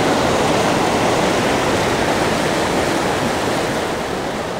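Surf washing through shallow water: a steady, loud rush, easing slightly near the end.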